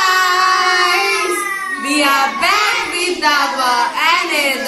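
A woman and two children singing together in loud voices, opening with a long held note and then shorter phrases that slide up and down in pitch.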